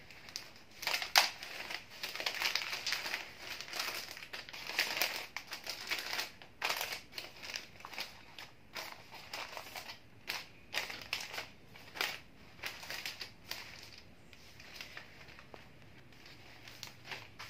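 Wrapping paper crinkling and rustling with sharp crackles as it is gathered and bunched around a bouquet's stems, quieter in the last few seconds.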